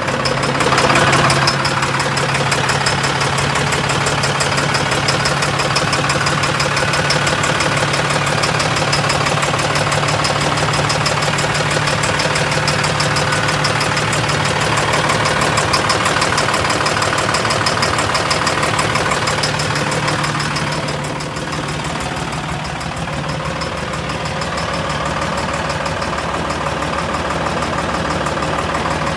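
Engine idling with a rapid, regular knocking running through it. The level dips a little about two-thirds of the way through.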